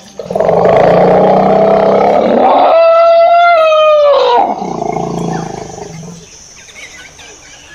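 Asian elephant trumpeting: a loud, rough call lasting about four seconds. It turns into a clear high tone for its last second or so, which drops in pitch as it ends. A quieter, lower rumble follows and fades out about six seconds in.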